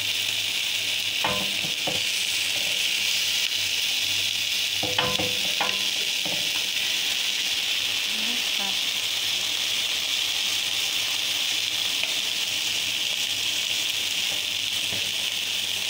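Pre-boiled chicken pieces sizzling steadily on a flat black griddle pan, with a few sharp clicks about a second in and again about five seconds in.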